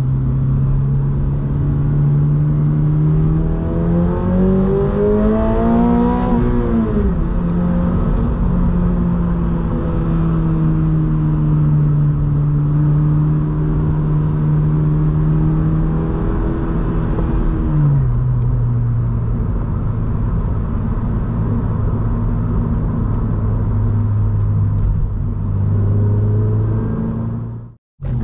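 Toyota GR86's 2.4-litre flat-four through a Borla S-Type exhaust, heard from inside the cabin while driving. The revs climb for about three seconds and then fall sharply, hold steady, and drop to a lower note about two-thirds of the way through. The sound cuts out briefly just before the end.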